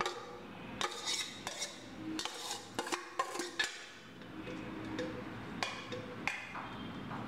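A steel spoon scraping and clinking against stainless steel vessels as cooked rice is tipped and spread into a pot: a string of light metallic clinks and scrapes.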